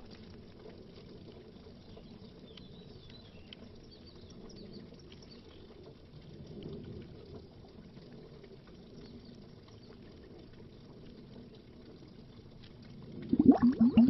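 Faint underwater ambience with a few small ticks of bubbles, then loud underwater bubbling wells back up about a second before the end.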